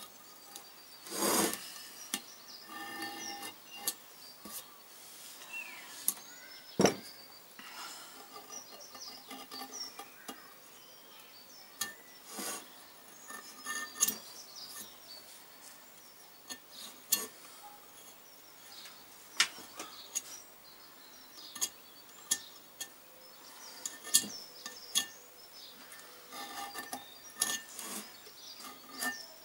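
A small metal hand tool scraping and clicking around the top edge of a Kawasaki 500 parallel-twin's aluminium cylinder block, deburring the sharp edge of the bore in short irregular strokes, with a few louder knocks of metal on metal.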